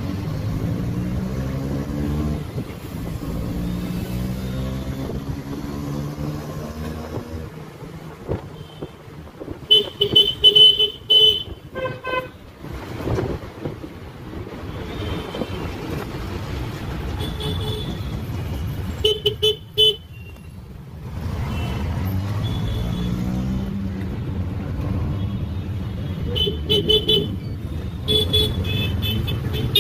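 Auto rickshaw engine running under the rider, its pitch rising and falling as it speeds up and slows in traffic. Vehicle horns honk in bursts of short beeps about a third of the way in, again about two-thirds through, and near the end; the first burst is the loudest.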